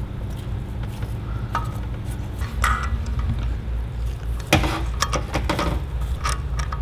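Light metallic clinks and knocks as a steel crankshaft is worked into a small engine block and onto its connecting rod, the sharpest knock about four and a half seconds in, over a steady low hum.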